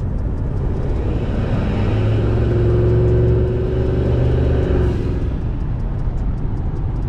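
Turbocharged 5.4-litre V8 of a 2003 Ford F-150 pulling under light boost, heard from inside the cab. The boost-actuated exhaust cutout opens at about 2.5 to 3 PSI, and the exhaust note grows louder from about a second and a half in, then eases off around five seconds in.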